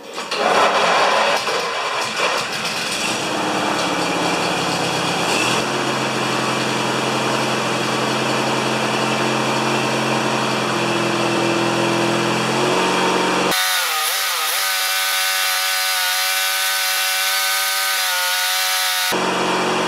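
16 HP Briggs & Stratton opposed-twin engine on an MTD yard tractor starting up and running steadily, its carburetor freshly rebuilt and started without priming. About 13 seconds in the sound changes abruptly to a thinner, higher steady tone with no low end.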